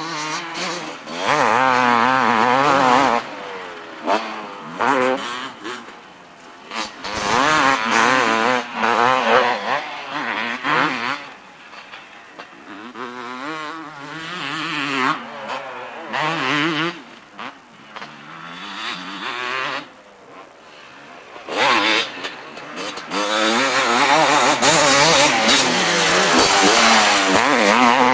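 250 cc two-stroke motocross bikes racing, engines revving hard, their pitch climbing and dropping over and over with the throttle. It is loudest in the first few seconds and again over the last few, with quieter stretches in between as the bikes get farther off.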